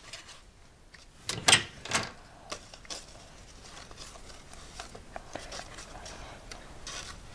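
Paper and card cutouts rustling and tapping as they are moved about a homemade paper toy theatre. There is a louder rustle about a second and a half in, then scattered light clicks.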